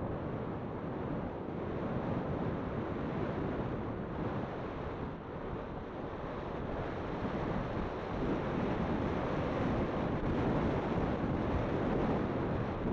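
Steady rushing wind noise buffeting the microphone, an even roar with no distinct events that swells slightly about eight seconds in.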